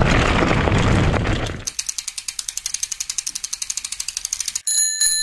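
Mountain bike's rear freehub ratcheting: a fast, even run of clicks, about a dozen a second, after the rough riding noise cuts off about a second and a half in. A bright ringing ding near the end.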